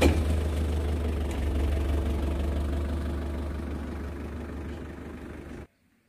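Small pickup truck's engine running just after starting, as the truck pulls away; a steady low hum that fades gradually, then cuts off abruptly near the end.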